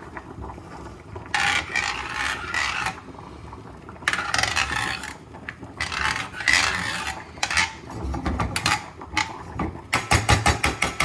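Hand-twisted pepper mill grinding black pepper in several gritty, rasping bursts, ending in a quick run of ratcheting clicks.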